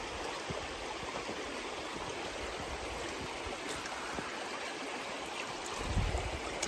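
Shallow river running steadily over shale bedrock, a constant rushing, with a low thud near the end.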